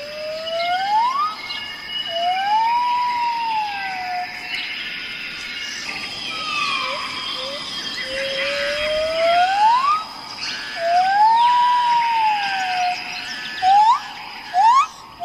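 A chorus of songbirds. One bird repeats a slow whistled phrase twice: a long rising note, then an arched note that rises and falls. Many quicker high chirps and a steady high tone run underneath, and short quick rising notes come near the end.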